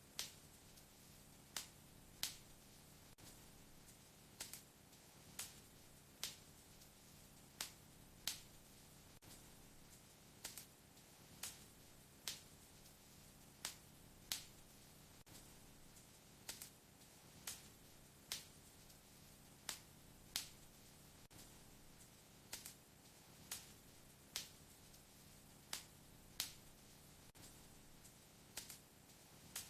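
Wood fire crackling in a fireplace: sharp pops of burning wood at irregular intervals, roughly one a second, over a faint steady low background.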